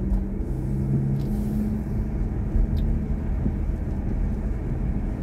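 Steady low road and tyre rumble heard inside the cabin of a BMW i4 M50 electric car driving along a street, with a low steady hum and no engine note.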